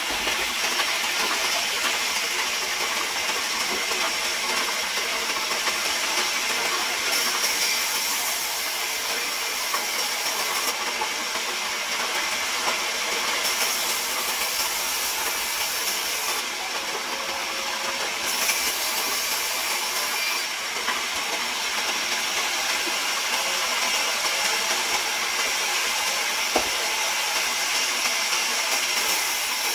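Large vertical band saw running and cutting lengthwise through a squared timber: a steady, high hiss that grows and fades a little as the feed goes on, with one sharp click near the end.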